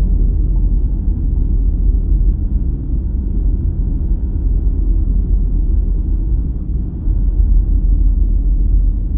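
A deep, steady rumbling ambient drone, heaviest in the bass, from the soundtrack's sound design.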